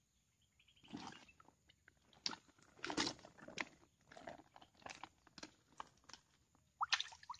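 A plastic sack being handled and crumpled, with irregular crinkling, crunching and knocking as a freshly caught snakehead is pushed into it.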